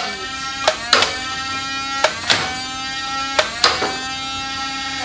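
Battery-powered flywheel Nerf blaster (Alpha Strike Flyte CS-10) held revved, its motors whining steadily while it fires a dart about every 1.3 seconds. Each shot gives a pair of sharp clicks about a quarter second apart, three times.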